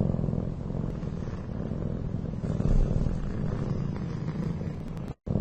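A cat purring steadily and close up, a continuous low rumble that stops abruptly just before the end.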